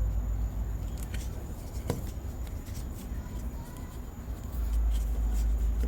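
Low steady rumble with a few light clicks and knocks of plumbing parts being handled under a sink, one sharper click about two seconds in.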